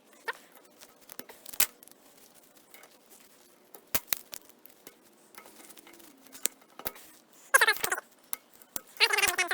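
Hand tools working in the steel body of a waterjet swivel: scattered light metallic clicks and taps, then two short bursts of squeaky metal-on-metal scraping, one about three-quarters of the way in and one near the end, as the stuck hoop seal is worked at to pull it out.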